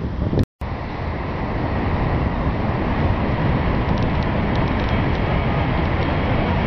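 Steady outdoor rushing noise of wind on the microphone mixed with distant road traffic. The sound cuts out completely for a split second about half a second in.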